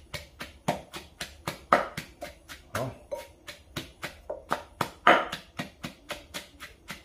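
Wooden pestle pounding curry paste of chilies, garlic and lemongrass in a clay mortar: quick, even knocks, about four to five strokes a second.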